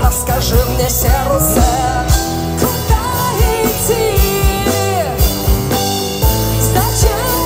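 Live rock band playing a song through a PA, with a steady drum-kit beat, electric guitar and keyboards, and a woman singing over it.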